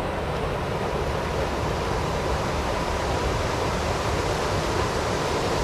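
Steady rushing outdoor noise with a low, flickering rumble.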